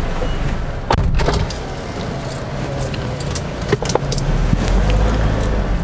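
Car running, heard from inside the cabin as a steady low engine and road rumble, with sharp knocks about a second in and again near four seconds.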